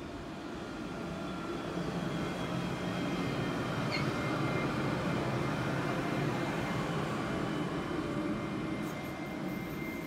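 An Alstom Citadis 305 low-floor light-rail tram passing by on its track. The rumble of its wheels and running gear swells as it comes close, then eases as it moves away.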